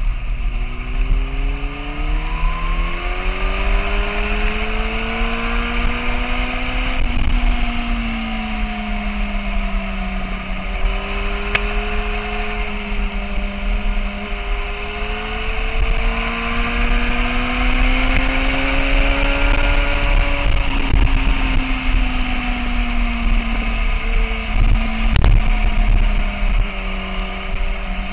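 Sport motorcycle engine heard from on board at track speed, its pitch rising and falling smoothly as the rider works the throttle through the corners, over a steady rush of wind.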